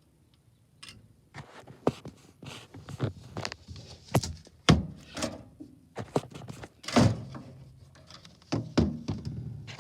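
A string of irregular knocks, clicks and thunks, starting about a second in, with the loudest thunk about seven seconds in.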